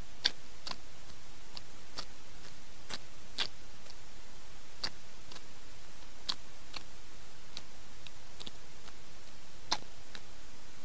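Close-miked eating sounds: sparse, irregular wet clicks as rice and sambal-coated sardine are mixed by hand and chewed, over a steady hiss.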